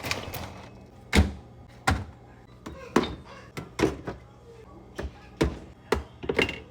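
Groceries and food containers being set down on fridge shelves and in the door bins: a string of irregular knocks and thunks, about ten in all.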